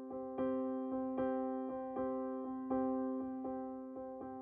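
Background piano music, notes struck in a steady, even pulse of about two or three a second.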